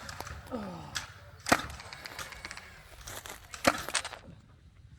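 Sharp snapping shots of compressed-air foam-dart blasters firing: one loud shot about a second and a half in and two close together near the four-second mark, with a short falling whizz early on.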